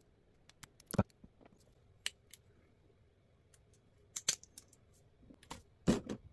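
Small white plastic parts of a Mobility Joint Gundam kit being twisted and snapped off their runner by hand, giving short, sharp plastic clicks. Strong clicks come about a second in, twice around four seconds and in a cluster near the end, with lighter ticks in between.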